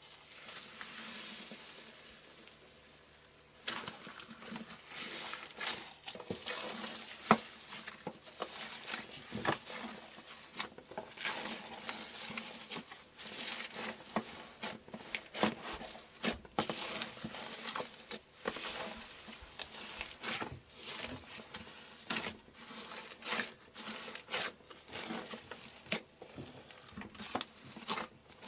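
Crunchy and soft things being crushed and squeezed by hand: a soft hiss at first, then from a few seconds in a dense, irregular run of crackles and crunches.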